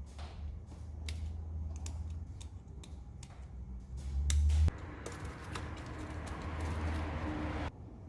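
Sharp plastic clicks and handling noise as electrical connectors are unplugged from an engine's wiring harness. About halfway through comes a scraping rustle of about three seconds that stops suddenly.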